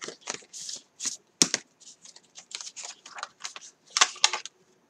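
Stamp set and die packaging being handled: irregular rustles, light taps and sharp small clicks, the crispest about a second and a half in and again near the end.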